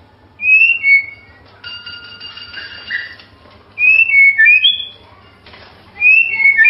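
White-rumped shama (murai batu) singing: three bursts of loud, clear whistled phrases made of short notes that slide downward, with a quieter held whistle of steady notes between the first two bursts.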